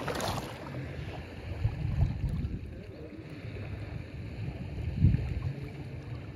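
Low, uneven wind rumble buffeting the microphone, over a faint steady wash of shallow water lapping at a grassy shoreline, with a brief hiss right at the start.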